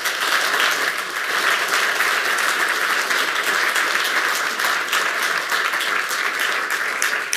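Audience applauding: many hands clapping in a dense, steady patter that dies away near the end.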